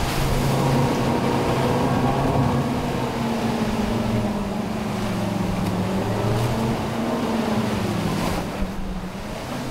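Twin outboard motors running at speed, a steady engine tone over rushing water and wind from the hull and wake. The engine pitch sags slightly near the end.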